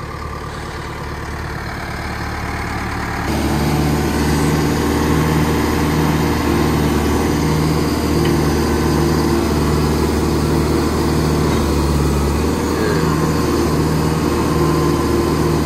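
Track loader's diesel engine running; it steps up to a higher, louder speed about three seconds in and holds there, with a regular pulsing about one and a half times a second.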